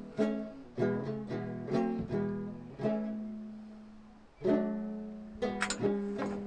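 Background music: a plucked string instrument playing a slow line of single notes, each ringing and fading, with one longer held note about halfway through.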